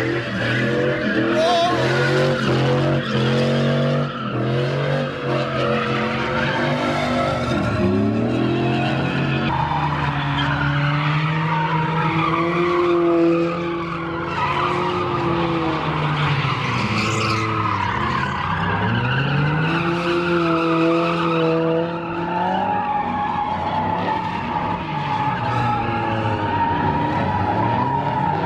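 A Chevrolet Silverado pickup and then a red convertible spinning donuts on asphalt. Their engines rev hard, rising and falling again and again, while the tyres skid and squeal.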